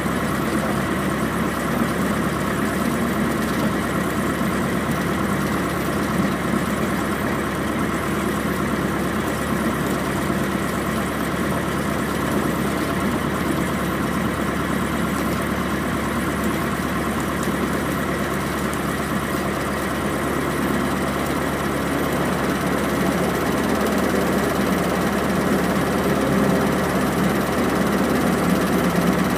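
Light single-engine plane's piston engine running steadily at low power on the ground, heard from inside the cabin, getting a little louder near the end.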